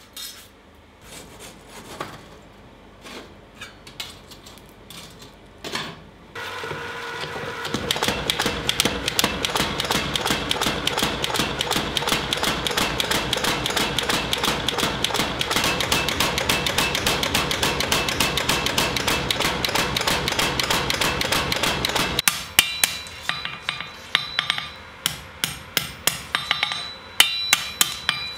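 Power hammer pounding a hot scythe blade held in a clamped jig: a long, fast, steady run of blows. Near the end it gives way to separate hand-hammer blows on the anvil. A few scattered knocks come before the power hammer starts.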